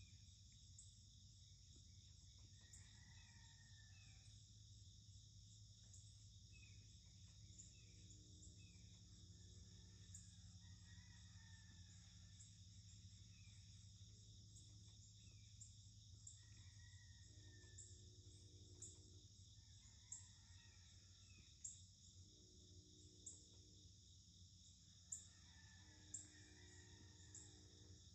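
Faint, steady outdoor chorus of insects, with bird calls now and then and short sharp chirps every second or two in the second half.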